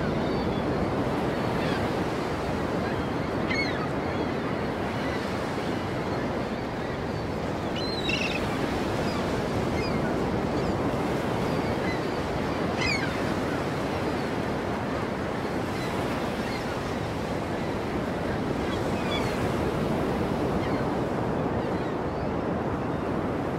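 Ocean surf washing steadily, with a few faint short high chirps now and then.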